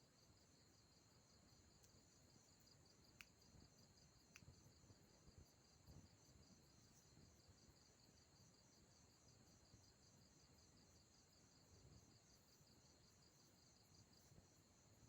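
Near silence, with faint, steady, rapidly pulsing insect chirring throughout.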